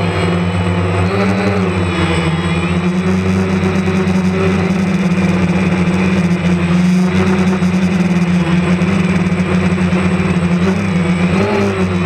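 DJI Phantom quadcopter's motors and propellers humming steadily, heard from the camera on the drone itself. The higher tones waver in pitch as the motors change speed, most clearly near the start and near the end.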